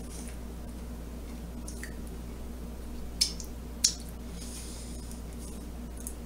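Mouth sounds of someone chewing a bite of miniature waffle, with faint wet squishes and two sharp smacks a little over three seconds in, about half a second apart.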